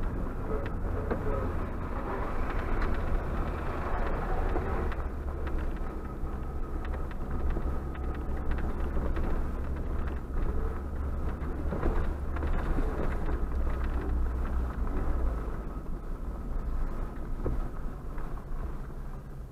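Suzuki Jimny JB74 with its 1.5-litre four-cylinder petrol engine driving on a gravel track, heard from inside the cabin: a steady low engine drone with tyres crunching and rattling over the gravel. It gets quieter near the end as the vehicle slows.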